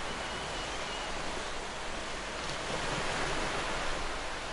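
Water rushing and splashing along the hull of a small sailing yacht under way through choppy water, with a steady hiss of wind.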